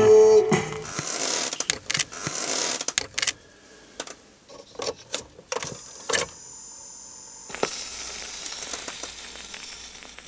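Music cuts off about half a second in. Then comes a run of clicks, knocks and rattles as a small record player is handled by hand, with a short steady hum about seven seconds in.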